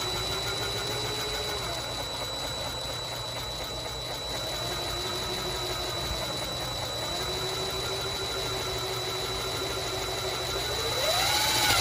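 Cordless DeWalt impact driver hammering steadily as it drives a hex washer-head screw through a steel wall panel into wood. The screw is slow to bite because it has little drill point for going metal to wood. The motor's pitch wavers, then rises near the end.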